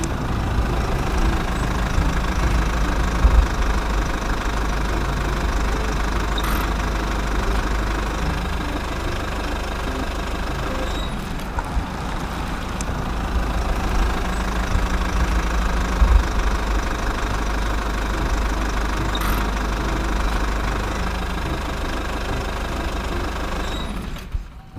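Bulldozer engine running steadily, a deep low rumble with a few sharp clicks through it, cutting off abruptly near the end.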